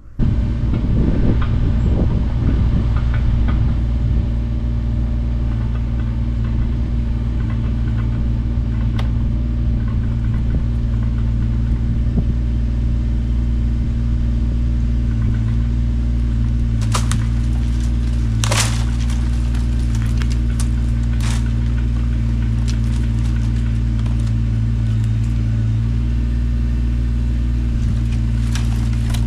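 Kubota BX23S tractor's three-cylinder diesel engine running steadily at a constant speed, with a few short clicks past the middle.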